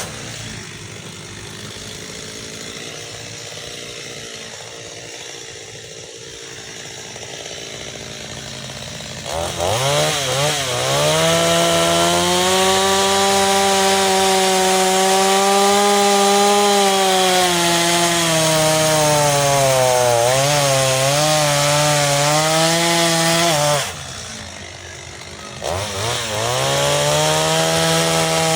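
Stihl MS 230 two-stroke chainsaw falling to idle, then revved to full throttle about nine seconds in and cutting wood, its engine pitch sagging under load. It drops back to idle briefly near the end, then revs up again.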